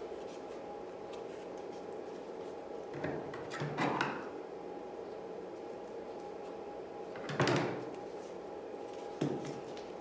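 Handling sounds from a cardboard toilet-paper-roll craft as string is pushed through a punched hole: a few brief rustling scrapes, the loudest about seven and a half seconds in, over a steady room hum.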